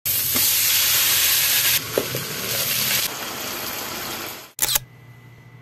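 Chicken frying in hot oil in a wok: a loud, steady sizzle with a few light knocks. The sizzle cuts off abruptly about four and a half seconds in, followed by a brief clatter.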